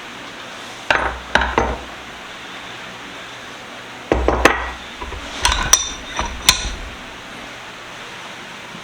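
Cast-iron and steel vise parts knocking and clinking together as they are handled during disassembly. There are three knocks about a second in, then a run of ringing metal clinks from about four to seven seconds.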